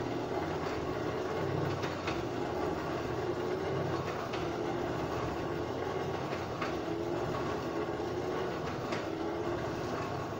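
Blacksmith's forge running steadily while the copper bar heats: an even rushing noise with a slow low pulsing under it and a few faint clicks.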